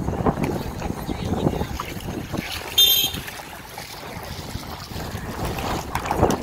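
Wind buffeting the microphone over choppy water, a rough low rumble that rises and falls. About three seconds in comes a brief, loud high-pitched chirp.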